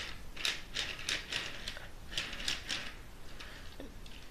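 Small plastic wheels of a toy car, the Transformers Earthrise Sunstreaker in car mode, rolling back and forth across a mat: a run of quick rolling swishes, a couple a second, dying down after about three seconds.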